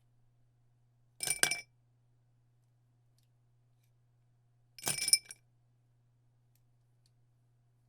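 Pens and pencils dropped into a glass, clattering and clinking against it in two quick bursts, about a second in and again about five seconds in.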